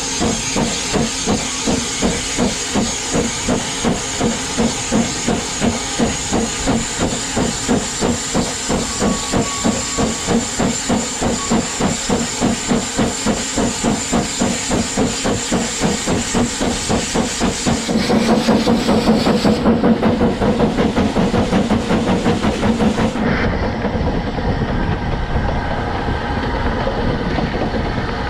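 Double Fairlie steam locomotive David Lloyd George under steam, its exhaust beating in a quick, even rhythm of about three beats a second over a constant steam hiss. About two-thirds of the way through the beats stop and a steadier, heavier rumble of the running train takes over.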